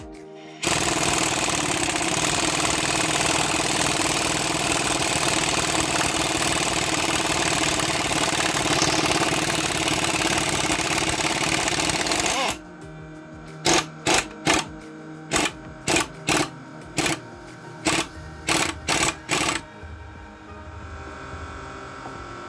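Power tool unwinding the screws of coil-spring compressors on a car's front strut, letting the spring out. It runs steadily for about twelve seconds, stops suddenly, then gives about a dozen short trigger bursts.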